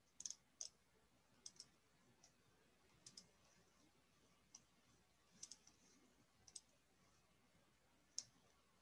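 Faint, light computer mouse clicks, about a dozen scattered irregularly, some in quick pairs.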